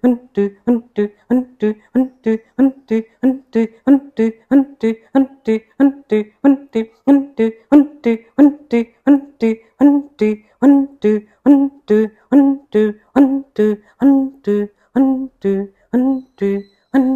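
Kapalabhati breathing: a person's short, forceful exhalations pumped out in a steady rhythm, each one voiced like a brief hum. About two and a half strokes a second at first, slowing to under two a second near the end.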